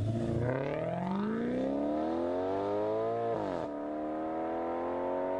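Maserati GranTurismo engine accelerating at full throttle, its pitch climbing steadily. About three and a half seconds in the pitch drops sharply at an upshift, then climbs again more slowly in the next gear.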